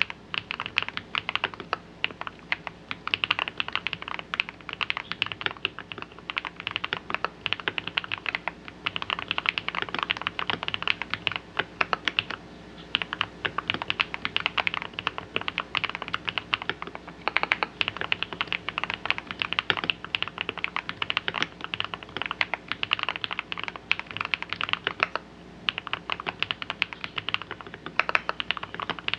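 Continuous typing on an RK Royal RG-987 mechanical keyboard with lubed Holy Panda–style tactile switches, a steel plate with Poron plate foam and a silicone-filled case, giving a deep, muted "thocky" keystroke sound. The typing stops briefly twice, about halfway and near the end.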